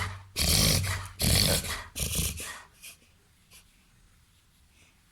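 A young Labrador–golden retriever–Weimaraner cross dog reverse sneezing: a quick string of harsh snorting inhalations through the nose, about one every 0.8 s. It fades to a couple of faint snorts after about two and a half seconds, then goes quiet.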